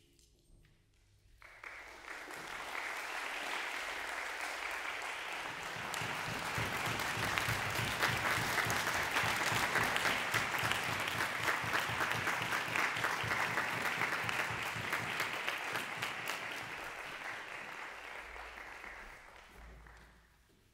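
Concert hall audience applauding. After a brief silence the clapping starts about a second and a half in, swells to a full ovation, then thins out and fades away near the end.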